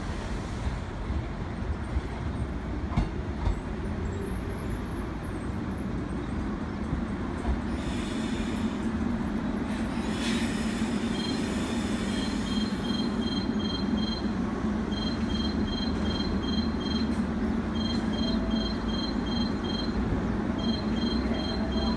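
Seoul Metro Line 1 modified resistor-control electric train rolling slowly into its terminal platform and coming to a stop, with a thin high squeal during the approach. From about halfway on there is a steady low hum and a repeating electronic beeping in groups.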